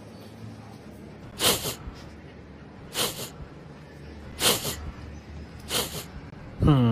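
A dog sneezing four times, about a second and a half apart. Near the end comes a short voiced sound that falls in pitch.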